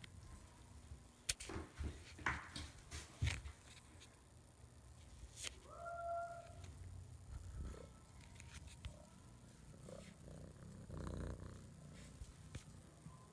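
A cat gives one short call about halfway through, then purrs close to the microphone as it presses its fur up against the phone near the end. A few sharp taps sound in the first few seconds.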